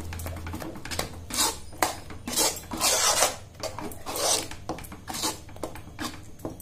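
Metal spoon scraping around a metal pan while stirring thick, sticky moong dal paste, an irregular scrape with each stroke, about one or two a second. The paste is thickened and off the heat, with ghee being worked in.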